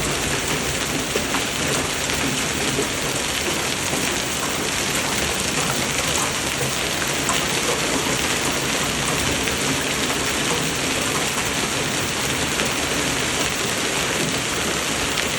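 Hail and rain pelting down in a dense, steady patter of countless small hits.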